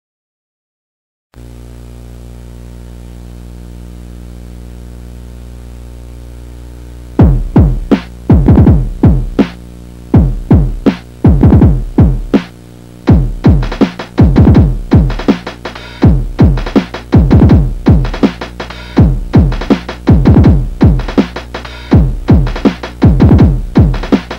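Electronic music: a short dropout to silence, then a steady synthesizer drone. About seven seconds in, deep drum-machine kicks join it, each falling in pitch, in an uneven rhythm of one to two hits a second.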